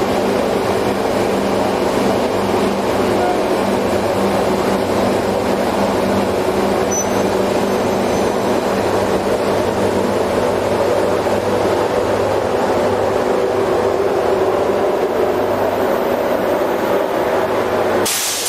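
Pair of NZR EF class electric locomotives running with a steady electrical hum and blower noise as they move slowly off, over a steady hiss of rain. Near the end the hum breaks off abruptly, with a short burst of hiss.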